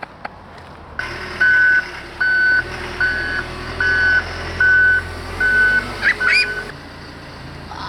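Backup alarm on a construction machine beeping seven times at an even pace, over the low rumble of its engine. The sound cuts off suddenly near the end.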